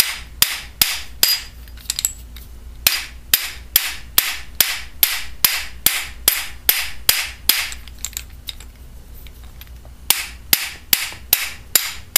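Steel hammer blows on a bolt set through an inexpensive drill chuck, driving the chuck body out of its sheet-metal outer sleeve. Sharp metallic strikes come about three a second, stop for about two seconds near the end, then start again.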